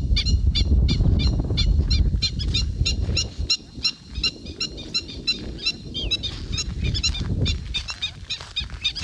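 Disturbed birds calling in alarm: many short, high calls repeated in quick succession, several a second, overlapping. A low rumble runs under the calls for the first three seconds or so, then fades.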